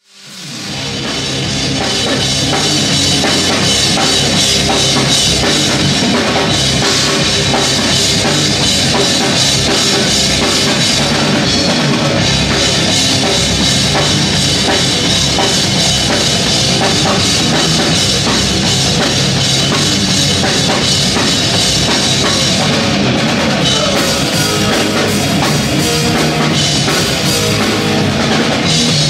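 Heavy metal band playing live: distorted electric guitar, bass and a pounding drum kit. It fades in over the first couple of seconds, then plays on loud and dense.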